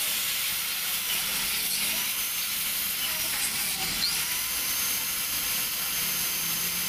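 Electric drill running steadily with a high hiss as its bit bores into a broken steel exhaust stud in the cylinder head, drilling it out so the stud can be extracted.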